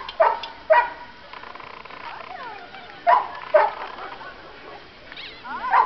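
Small white terrier barking while it runs an agility course: short, sharp yaps coming in pairs, about five in all.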